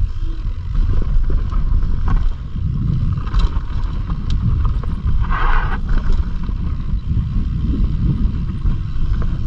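Wind buffeting the action camera's microphone as a mountain bike rolls down a rough trail, a steady deep rumble with scattered clicks and rattles from the bike over the ground.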